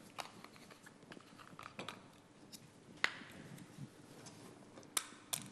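Plastic squeeze bottles of mayonnaise and ketchup being shaken and handled: faint scattered taps and clicks, with one sharp click about three seconds in and two more near the end.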